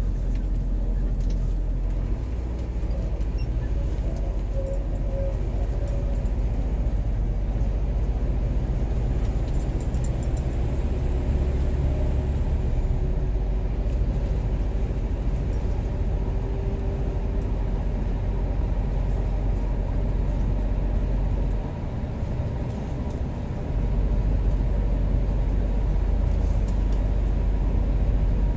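Scania G410 truck's diesel engine running at highway speed with road noise, heard from inside the cab as a steady low drone. About three-quarters through, the deepest part of the drone drops away for about two seconds, then comes back slightly louder.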